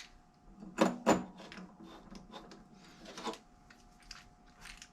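Small screws and a screwdriver clicking and tapping against the metal throttle body as the fuel meter cover screws are started by hand. A string of sharp clicks, the two loudest close together about a second in, then lighter taps.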